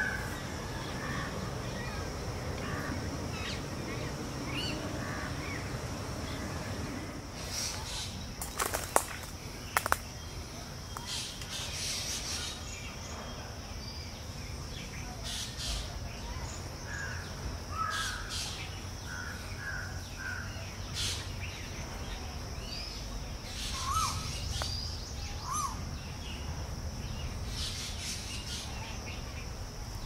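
Birds calling: short, sharp calls and chirps scattered throughout, over a steady high-pitched buzz. A few sharp clicks sound about nine to ten seconds in.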